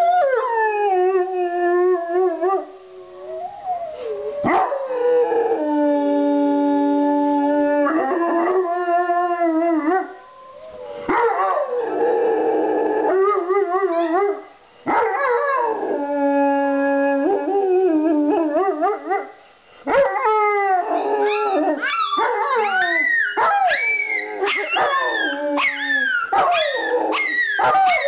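A Rottweiler and a Pomeranian howling along with recorded wolf howls played from a computer. The Pomeranian's howl is screechy. Long held howls with short breaks give way, about two-thirds of the way in, to many overlapping howls that rise and fall quickly.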